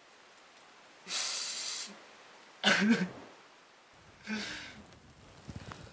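A man's stifled, breathy outbursts behind his fist: a hissing exhale about a second in, then two short voiced bursts near three and four seconds, like suppressed laughter or coughing.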